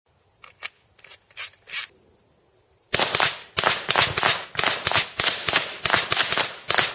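A few fainter shots, then after a second's pause a rifle firing a rapid string of loud shots, about four a second.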